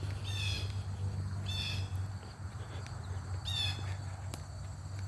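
A bird calling outdoors, a short raspy call repeated about three times, one to two seconds apart, over a steady low rumble.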